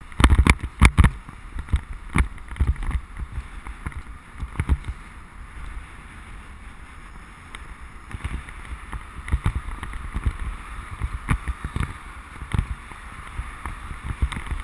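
Bicycle riding on a rain-wet road, heard from a camera on the bike: steady tyre hiss and spray with wind on the microphone and a low rumble, broken by frequent knocks and rattles as the bike goes over bumps, heaviest in the first second.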